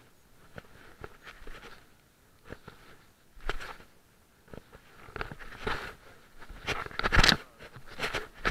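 Handling noise from a camera carried against clothing: cloth rubbing and scraping over the microphone in irregular rustles and knocks, loudest about seven seconds in.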